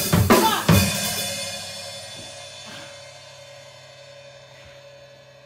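Drum-kit music ending: two last drum and cymbal hits in the first second, then a crash cymbal ringing out and fading away over several seconds.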